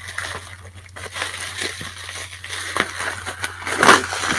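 Plastic bubble wrap crinkling and crackling as it is pulled off a glass jar by hand, in irregular rustles with a louder crackle near the end.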